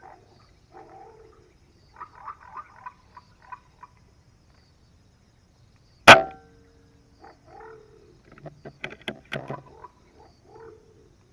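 A single sharp shot from a PCP air rifle about six seconds in, fired at a green pigeon in a treetop. Short animal calls repeat before and after it.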